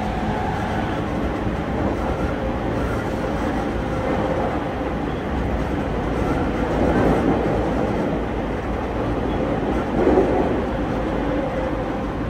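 Interior running noise of a JR E231 series 1000-subseries electric commuter train at speed: a steady rumble of wheels on rail heard inside the passenger car. It swells louder twice, about seven and ten seconds in.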